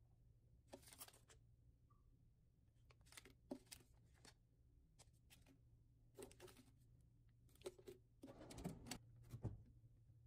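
Coffee drip-bag packets and instant-coffee stick sachets being handled and set down on a desk: a string of quiet rustles, crinkles and light taps of the foil packaging, with a longer, busier scuffle near the end. A faint steady low hum lies underneath.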